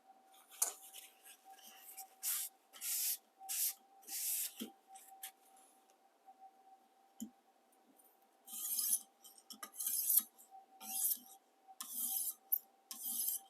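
Rasping strokes of a 1200-grit sharpening stone drawn along the edge of a chef knife in a ViperSharp guided sharpening system: about five quick passes, a pause of a few seconds, then about seven more.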